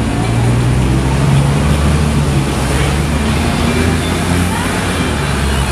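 A steady low engine rumble, running evenly throughout.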